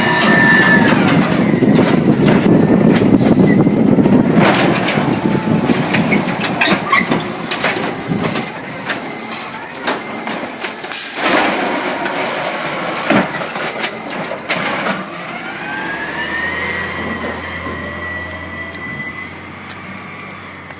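Amrep garbage truck working, with its engine and a series of sharp knocks and clatters through the middle. A high squeal dies away about a second in, and another rises and holds over the last five seconds as the whole sound grows fainter.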